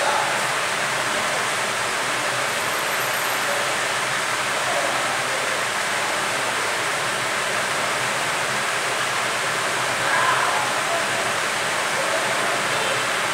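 Hot air rework station blowing a steady hiss of air onto a phone's circuit board, heating the metal shield can to loosen its solder.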